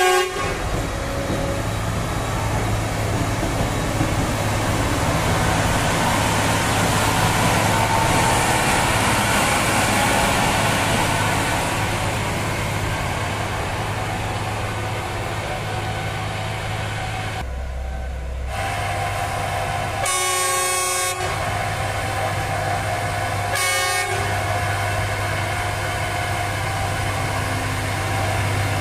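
Diesel engine of an RM 80-92U ballast cleaning machine running steadily as the machine travels along the track, with a steady hum and rumble. A horn sounds for about a second roughly two-thirds of the way through, and again briefly a few seconds later.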